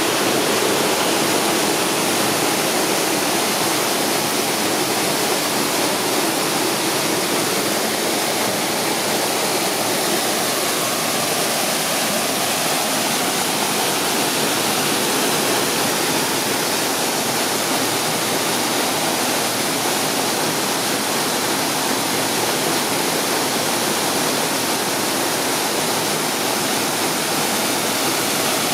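Waterfall rushing: a steady, loud roar of falling water.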